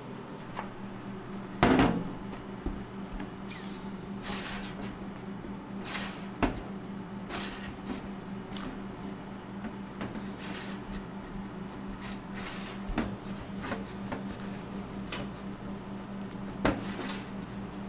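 Pizza dough being pressed and pushed out by gloved hands in an oiled square steel Detroit-style pan, with soft handling sounds and the pan knocking on a stainless-steel counter now and then, the loudest knock about two seconds in and another near the end. A steady low hum sits underneath.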